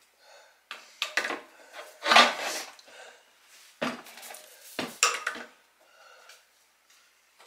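Sheet-metal stovepipe parts clanking and scraping against each other as they are handled and fitted together: a run of sharp metallic knocks with short ringing, the loudest about two seconds in.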